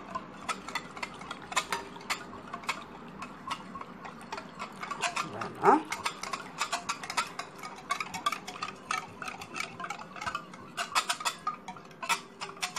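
Wire whisk beating a runny zgougou and flour batter in a glass bowl: rapid irregular clicks and taps of the wires against the glass. A short rising squeak comes about halfway through.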